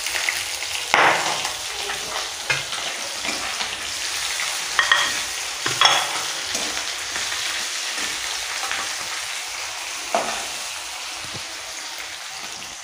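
Sliced onion frying in hot oil in a metal kadai, a steady sizzle, stirred with a spatula that scrapes and clinks against the pan several times.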